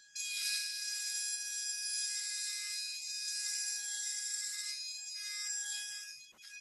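Schick S3 dental milling unit's spindle running at 50,000 rpm, milling a copper piece: a steady high-pitched whine with hiss. It stops near the end.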